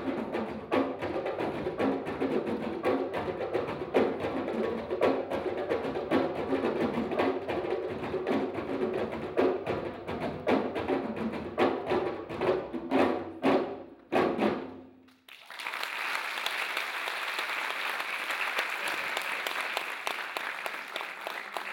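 A djembe ensemble drumming by hand, a dense rhythm of strikes that stops about fourteen seconds in. About a second later an audience applauds steadily.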